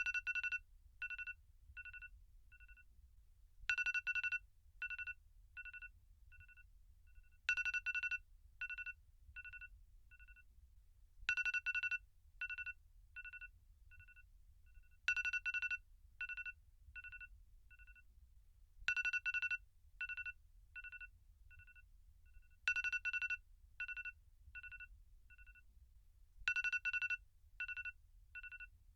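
iPhone alarm tone ringing in a repeating loop: about every four seconds a loud beep is followed by a run of fainter beeps, about two a second, each fading away, all on the same steady two-note pitch.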